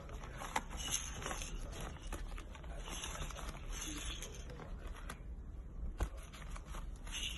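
A raccoon rummaging in crinkly packaging, with continuous rustling and crackling and two sharper knocks, one about half a second in and one about six seconds in.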